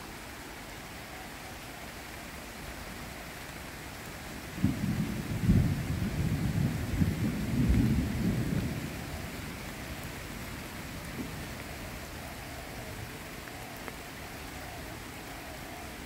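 Steady rain falling on foliage and the path. About five seconds in, a loud low rumble of thunder breaks in and rolls on for about four seconds before fading back into the rain.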